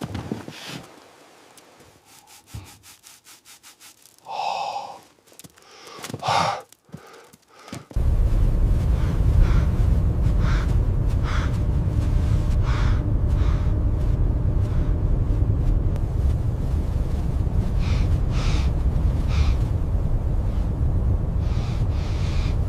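Heavy breathing and gasps, quiet at first. About a third of the way in, a loud, steady rush of blizzard wind starts abruptly and keeps going, with breathy gasps repeating over it.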